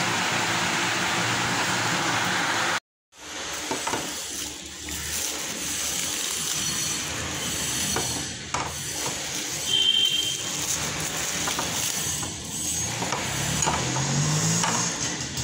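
Steady fan noise for the first few seconds, then cut off abruptly. After that comes crinkly rustling of plastic wrap with small clicks and knocks, as paper cups of frozen kulfi are unwrapped and handled on a tray.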